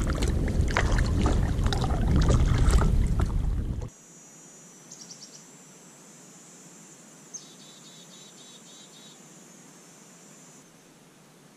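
Gusting wind on the microphone and choppy river water slapping against a canoe, cutting off suddenly about four seconds in. Then quiet woods with a faint high-pitched insect buzz and a short run of chirps.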